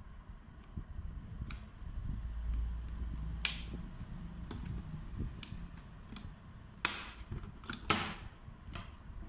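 A flat screwdriver prying apart the plastic housing of an LED panel light: scraping and handling noise broken by several sharp plastic clicks, the loudest about eight seconds in, as the inner cover's locking tabs let go.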